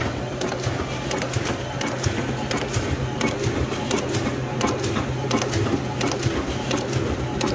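Shiki 30MDFU flatbed label printing machine running: a steady hum under a quick, uneven clatter of clicks as the label web feeds through.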